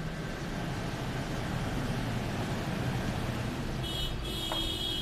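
Large SUV driving slowly past at low speed, its engine a steady low rumble that swells a little in the middle. A shrill high tone sounds near the end.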